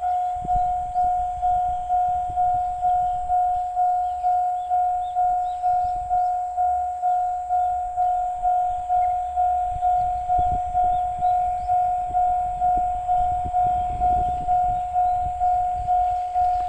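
Japanese railway level-crossing alarm ringing: one loud electronic ding repeated about two and a half times a second, starting suddenly and keeping an even beat, signalling an approaching train.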